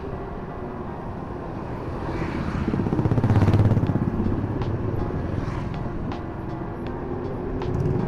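Riding and street-traffic noise heard from an electric bike moving at speed: a steady low rumble, with a motor vehicle's sound swelling and fading about three to four seconds in.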